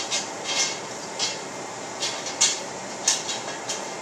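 Oiled sweet potato strips tossed in a stainless steel mixing bowl, tumbling and rattling against the metal in repeated strokes, roughly two a second.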